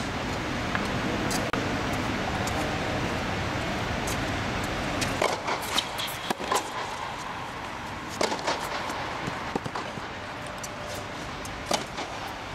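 Tennis rally on an indoor court: a string of sharp ball strikes off rackets and bounces on the court, irregularly spaced and starting about five seconds in. Before that there is a steady low rumble, which drops away as the hits begin.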